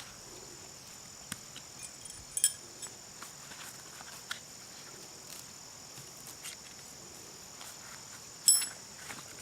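Scattered clicks and knocks as metal trap stakes are pulled from the ground and handled, with a sharp ringing metallic clink near the end. Insects chirr steadily underneath.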